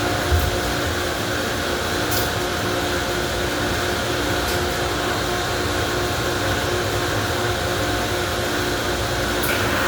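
Car wash equipment running with a steady hum and hiss, with a low thump just after the start and a few faint clicks.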